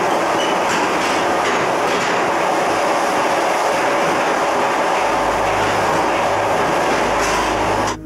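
ED9M electric multiple-unit train running on the rails: loud, steady rail noise, with a low hum joining about halfway through.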